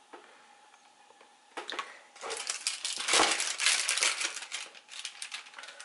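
Thin clear plastic sheet from a roll of pie crust crinkling as it is peeled off and handled: a dense crackling that starts about a second and a half in, is loudest in the middle and thins out near the end.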